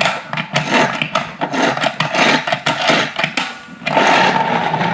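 Plastic push-and-go toy truck being pressed down by its driver figure, its wind-up mechanism giving a fast run of rattling ratchet clicks on a wooden floor. About four seconds in the clicking gives way to a steady whir as the truck runs.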